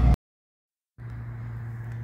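Noise from a car driving cuts off abruptly into dead silence for just under a second, then a steady low hum comes in.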